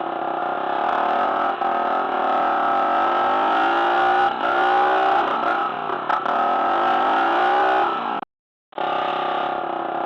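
Toy motorbike's electronic sound effect: a recorded motorcycle engine revving up and down, played through a small speaker. It cuts out abruptly for a moment near the end, then starts again.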